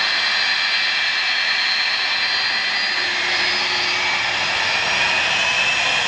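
Rolls-Royce RB211 turbofan engines of a Boeing 757-200 running at low thrust as the aircraft taxis: a steady rushing noise with a high multi-tone whine in it, the whine edging up slightly in pitch in the second half.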